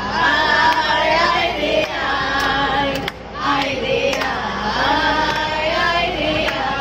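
A group of women singing a song together, with long held notes, and hands clapping along.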